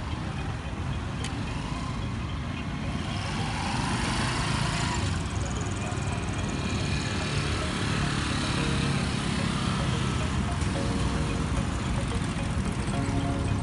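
Road traffic going past, with a broad swell as a vehicle passes about four to six seconds in and a motorcycle going by near the end.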